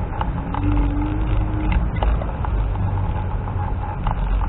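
Wind noise on the microphone and the steady running and road noise of a scooter under way, with a faint steady whine and a few small clicks and rattles.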